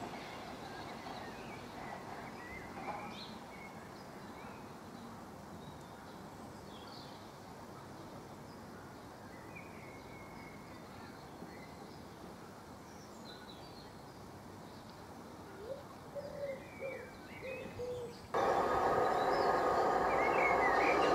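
Birds chirping over quiet open-air ambience while the rumble of a departing Class 700 Desiro City electric train fades away. About eighteen seconds in, the sound cuts abruptly to a Class 376 Electrostar electric train running into the platform. It is loud, with the whine of its traction motors heard as several steady tones.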